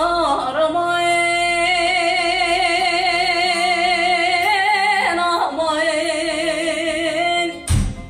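A woman singing a Turkish uzun hava in long held notes with strong, even vibrato, breaking into quick ornamented turns about half a second in and again about five seconds in, over a softly played bağlama. A loud thump near the end.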